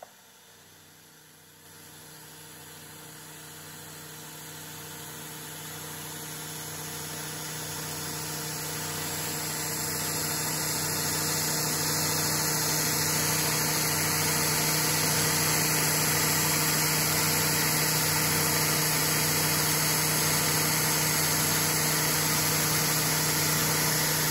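Milling machine spindle running a five-flute solid carbide end mill at 1700 RPM through a notch cut in a metal part, with a steady hiss of coolant spray over a low, steady hum. It comes in quietly about a second and a half in, grows louder over the next dozen seconds, then holds steady.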